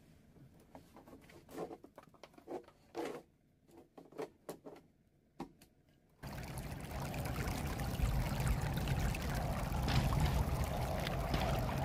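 Faint scattered taps and knocks, then, about six seconds in, a sudden switch to a steady rush of flash-flood runoff welling up and churning through a stone-lined pool over the yard drain system.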